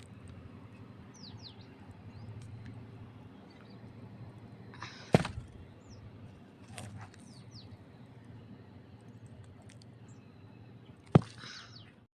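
Pieces of baked clay pot crunching: two sharp cracks about six seconds apart, each with a short crunchy tail. Faint bird chirps sound in between.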